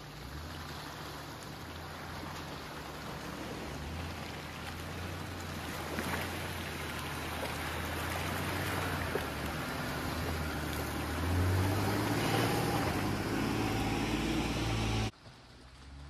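Jeep engine pulling steadily under a broad rushing wash of tyres through water and mud, growing louder toward the end. The sound cuts off suddenly about a second before the end.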